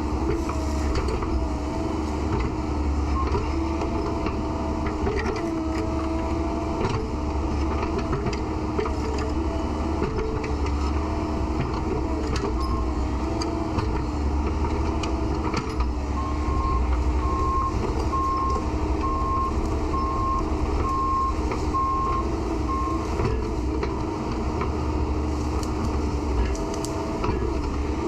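Excavator diesel engine running under load, its pitch shifting as it works. In the second half a travel alarm beeps about once a second for several seconds.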